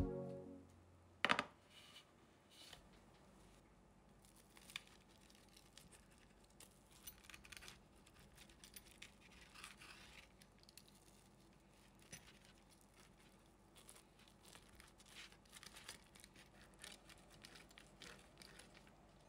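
Faint, scattered scratching and crinkling handling noises, with one sharp click about a second in.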